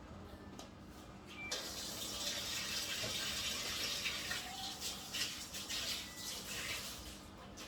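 Water running from a tap. It comes on abruptly about one and a half seconds in, flows steadily, and tails off shortly before the end.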